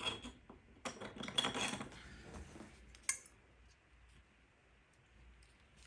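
Light metal clicking and scraping of a pin-tumbler lock being worked apart as the core is pushed out of its housing, with a sharper click about three seconds in.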